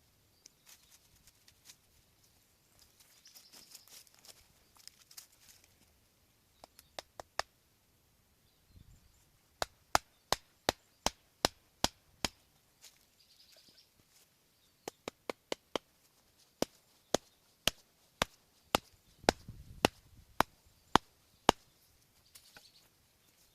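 Chopping firewood at camp: sharp wooden strikes coming about two a second in two long runs, with a few scattered strikes before them.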